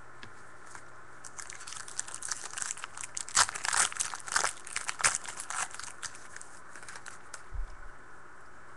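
Foil trading-card pack being torn open and crinkled by hand: a quick run of sharp crackles that starts about a second in, is loudest in the middle and dies away near the end.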